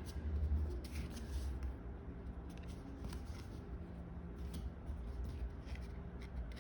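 Pokémon trading cards being handled and sorted: soft rustling and sliding of cards with a few light clicks scattered through, over a steady low hum.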